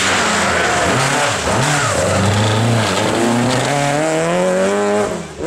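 Rally car engine revving hard, its pitch swinging up and down with throttle and gear changes, then climbing steadily under acceleration before falling away near the end.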